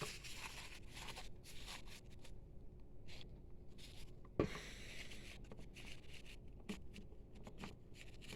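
Faint, irregular scratching strokes as dried ink is scraped and rubbed off a printer's capping station after being softened with alcohol, with one sharper knock about four and a half seconds in.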